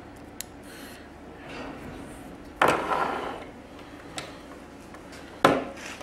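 Handling noises from a small plastic wiring connector and hand tools on a workbench: a few light clicks and two louder knocks, one about halfway through and one near the end.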